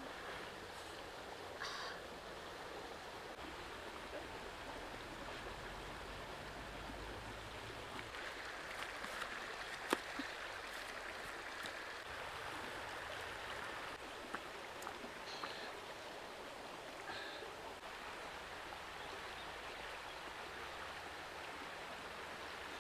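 Shallow rocky stream flowing steadily. A single sharp click comes about ten seconds in, and a few faint short high sounds are scattered through.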